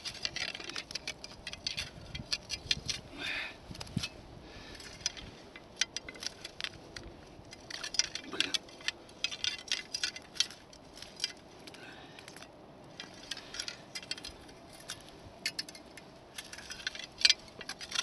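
Irregular crisp clicks and rustles from an ice angler handling a short ice-fishing rod and line at the hole while playing a fish, with the rubbing of stiff winter clothing. They come in scattered clusters with quieter gaps between.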